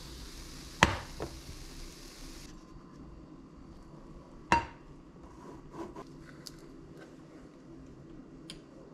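Cooking utensils clinking against a frying pan and a plate as a pancake is lifted out and set down: sharp clinks about a second in, and a louder metallic ping with a short ring about four and a half seconds in, then a few lighter taps. A faint frying hiss cuts off about two and a half seconds in.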